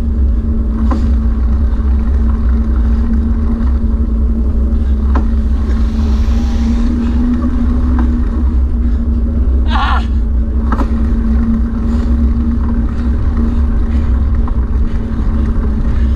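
Steady motor hum with a heavy low rumble, from the motor moving the camera alongside the runner. A short voice call cuts in about ten seconds in.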